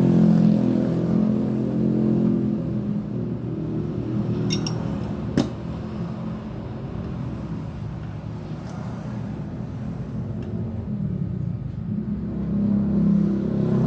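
A Honda Scoopy's small single-cylinder scooter engine running, louder at the start and again near the end. One sharp click about five seconds in.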